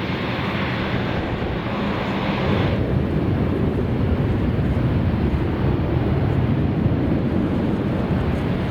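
Airliner engines running with a steady rumble that deepens and grows a little louder about three seconds in, mixed with wind buffeting the microphone.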